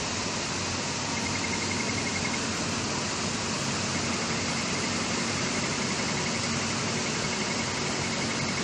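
Hashima HN-770G-100 needle detector conveyor running with a steady hiss and hum, while its alarm sounds a rapid, high-pitched pulsing beep, briefly about a second in and again from about four seconds on. The alarm is the detector signalling the metal in a 1.2 mm calibration test card.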